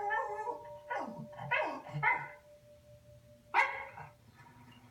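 A dog barking and yelping: a short run of calls, each falling in pitch, the last and loudest about three and a half seconds in.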